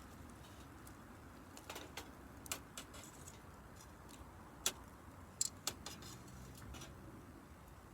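Wood campfire crackling: scattered, irregular sharp pops and snaps over a faint low background, the loudest pop a little past halfway.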